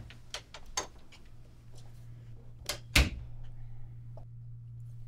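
A room door being opened and shut: a few light clicks of handling, then a loud latching knock with a thud about three seconds in, and one more click near the end. A steady low hum runs underneath.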